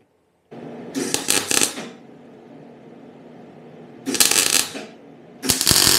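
MIG welder arc crackling in three short bursts, about a second in, about four seconds in and near the end, as holes in a thin steel scooter legshield are filled bit by bit. A steady low hum runs between the bursts.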